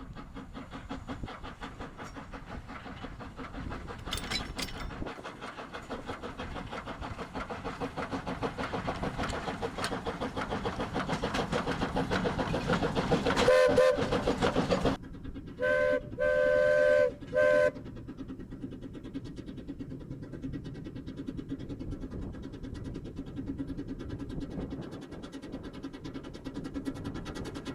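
Peckett 0-6-0 saddle tank steam locomotive working, its exhaust beats coming in a fast, even rhythm that grows louder toward the middle. About halfway through the steam whistle sounds briefly, then gives three blasts, the middle one longest. The beats then carry on more quietly.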